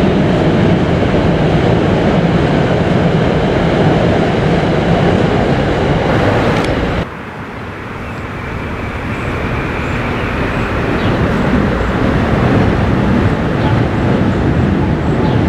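Electric commuter train rolling across a steel truss railroad bridge, a steady loud rumble of wheels on the track. It cuts off abruptly about seven seconds in, and then a second train's rumble builds up gradually toward the end.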